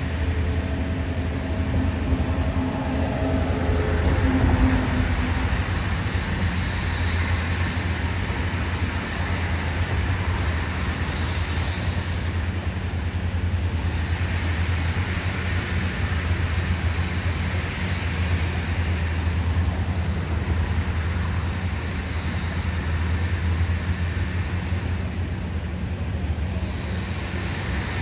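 Locomotive running: a steady low rumble under a continuous hiss, with a few faint held tones in the first few seconds.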